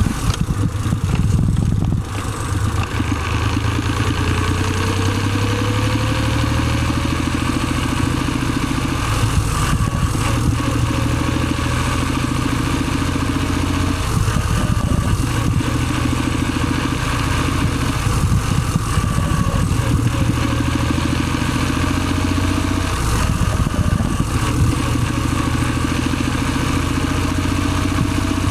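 Car engine and drivetrain running with an abnormal gearbox noise: a fainter whine that climbs slowly in pitch several times over the steady engine sound.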